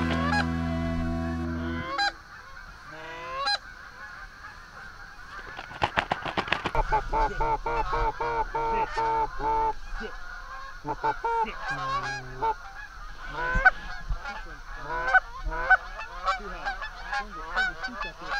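Canada geese honking and clucking in rapid runs of short calls, dense around the middle and scattered near the end. The tail of background music ends about two seconds in.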